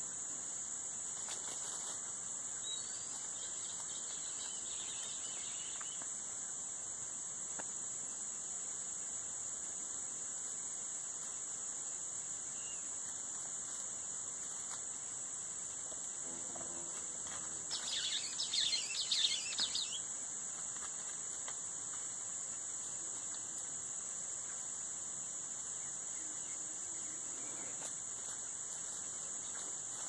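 Steady, high-pitched insect chorus, crickets or similar, droning without a break. About two-thirds of the way through there is a brief, louder burst of higher chirping or rustling sound lasting a couple of seconds.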